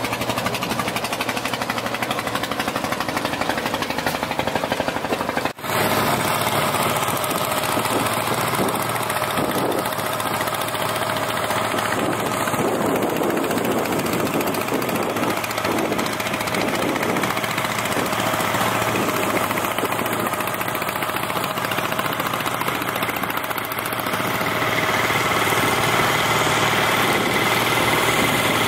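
A small wooden river boat's engine running steadily under way, with a brief break about five and a half seconds in.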